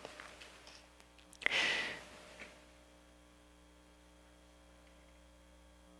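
A man breathing into a close cheek microphone: a soft breath in the first second, then one sharp sigh-like exhale about a second and a half in. After it only a faint steady electrical hum is heard.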